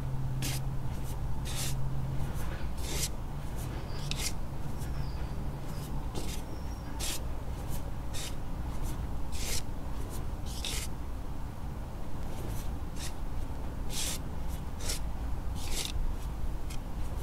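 Hands squeezing and scooping sifted Ader gym chalk mixed with turquoise colour powder, making short, soft crunches at irregular intervals, about one or two a second, over a steady low rumble.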